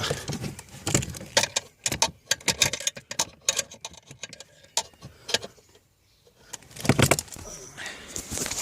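Metal hand tools, a ratchet with sockets and extensions, clinking and rattling in irregular clicks and knocks, with a brief pause about six seconds in and a louder knock about a second later.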